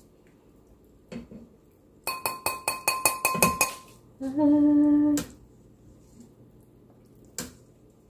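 A metal skimmer tapped about nine times in quick succession against the rim of a stainless steel soup pot, each tap ringing, as fat is knocked off it during skimming. Then a person hums one steady note for about a second, and there is a single light clink near the end.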